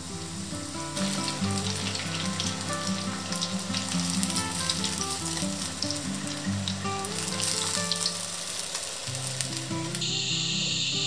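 Food deep-frying in hot oil, a dense crackling sizzle, over background guitar music. About ten seconds in the crackle stops and a steady hiss takes over.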